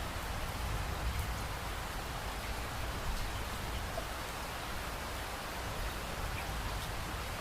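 Steady rain falling on a window, an even hiss with a few faint drop ticks and a deep low rumble underneath.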